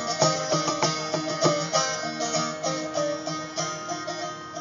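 Guitar picked in a steady pattern of single notes and chords that ring on, with no singing; it grows quieter toward the end.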